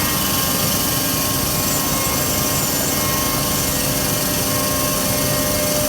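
Biesse CNC router running: a steady machine noise with a few steady whining tones held level throughout.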